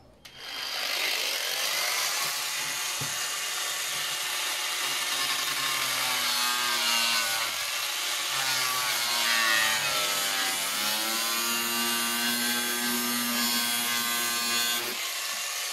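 Small cordless grinder with a cutting disc slicing through the side of a plastic oil container: the motor's whine with the disc rasping through the plastic. Its pitch sags and recovers as the cut loads the disc, and it stops near the end.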